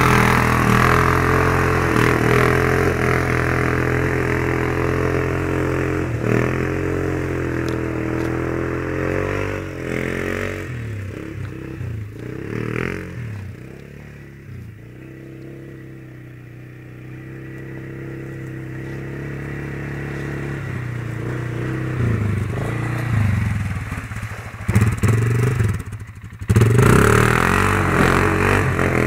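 Polaris Scrambler 500 quad's single-cylinder engine revving hard as the wheels churn through mud and puddles, with mud and water splashing. The engine fades as the quad moves off, is faint in the middle, and grows loud again as it comes back into the mud near the end.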